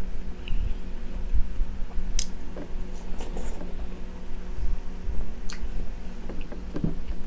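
Wet squishing of juicy watermelon flesh being scooped with a spoon and fingers and chewed, with a couple of sharp clicks, over a steady low hum.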